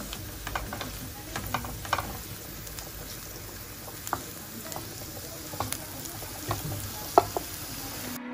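Chopped mushrooms and onion sizzling in a non-stick frying pan as a wooden spatula stirs them, with scattered scrapes and taps of the spatula against the pan; the sharpest tap comes about seven seconds in.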